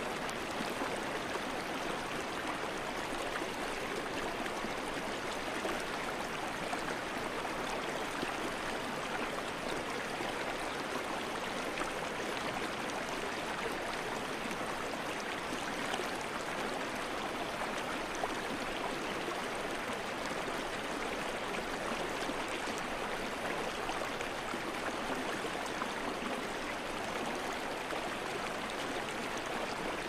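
River water rushing steadily, an even unbroken flow noise.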